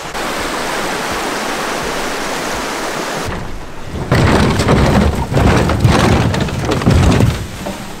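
A steady rushing noise, then a drift boat's hull sliding down wooden log rails with a loud, rough scraping rumble and knocks. It ends as the boat runs into the river with a splash.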